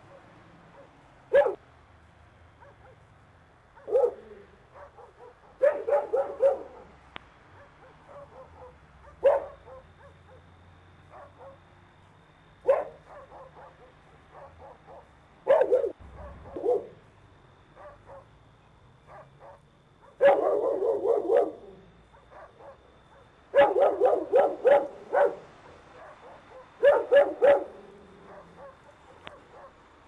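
A dog barking: single barks a few seconds apart at first, then, in the last third, runs of several quick barks in a row. The bark-monitoring alarm software reads the single barks as normal activity and the quickening runs as suspicious activity, a dog alerting to an approaching intruder.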